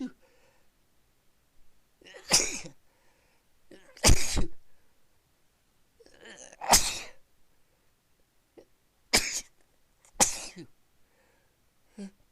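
A person sneezing over and over in a sneezing fit: five loud sneezes one to three seconds apart, with quieter breaths between them.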